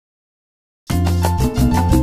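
Silence, then a salsa-style song's instrumental opening starts abruptly just under a second in, with a steady bass line and regular percussion strokes.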